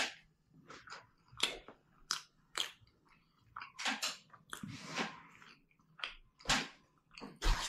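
A person chewing and biting into a slice of pizza: a string of irregular, short chewing and biting sounds with brief pauses between them.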